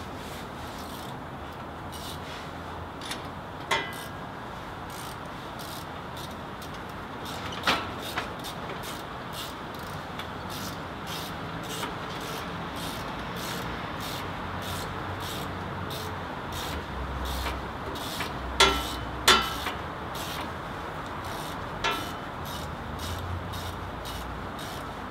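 Hand tools clinking against a lawn tractor's small engine while the spark plug is refitted: about six sharp metallic clinks, two of the loudest close together about three-quarters of the way in, over a steady background hum with a low rumble in the second half.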